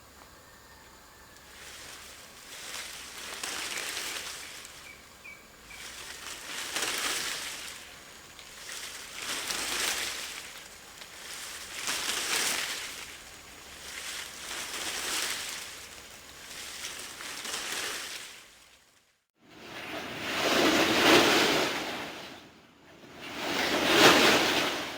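Palm fronds swung and shaken to mimic a giant bird's wing beats: a series of rustling whooshes, roughly one every two to three seconds, then after a brief pause two louder, fuller swings near the end.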